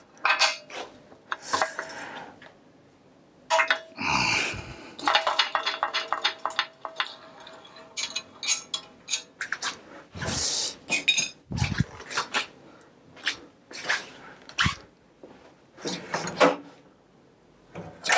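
Metal hand tools clicking and clanking while a bicycle's crank is being taken apart and tools are handled at a steel tool chest, with a run of quick clicks and a faint metallic ring about four to nine seconds in.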